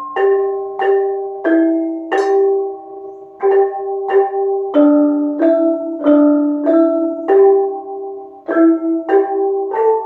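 Malay gamelan bonang, rows of bronze kettle gongs, played by several players striking together with padded mallets: a steady beat of about one and a half strokes a second, each stroke ringing on with several pitches sounding at once, and two short pauses in the pattern.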